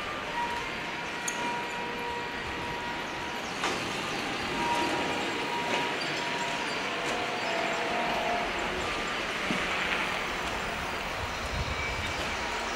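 City street traffic: a steady wash of noise from passing vehicles, with a few brief steady whines and small knocks mixed in.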